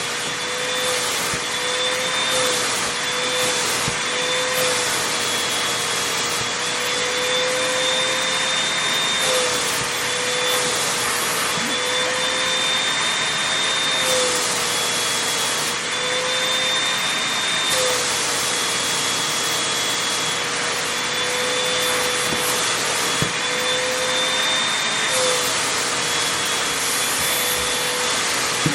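Vacuum cleaner running steadily with a high whine, its hiss swelling and easing as the nozzle is worked over fabric.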